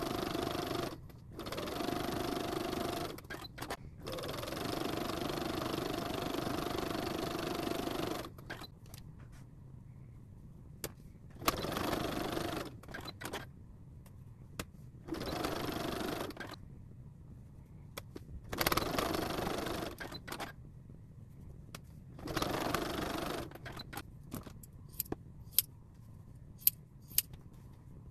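Domestic sewing machine stitching fabric in about seven separate runs of one to four seconds, stopping and starting between seams. Near the end come sharp single snips of scissors trimming the fabric.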